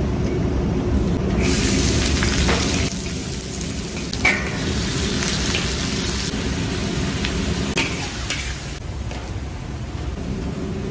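Stir-frying in a large steel wok: oil and food sizzling in surges as ingredients go in and are tossed, with the ladle and spatula clicking and scraping against the wok, over a steady low rumble.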